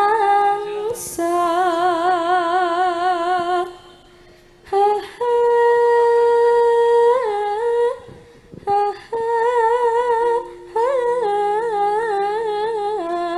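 Female Javanese sinden voice singing long, slow, ornamented notes with a wide vibrato into a microphone, in three phrases with short breaks about four and eight seconds in.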